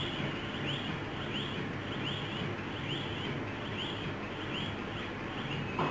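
A bird chirping over and over, short high chirps about two and a half a second, over steady room noise.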